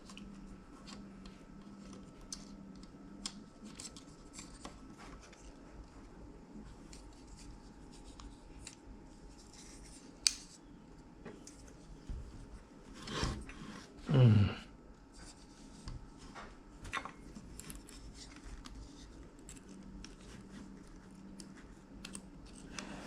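Small clicks, rubbing and scraping of plastic and metal parts being handled and fitted into a cassette deck's mechanism. About 13 to 14 seconds in there is a louder scrape that slides down in pitch.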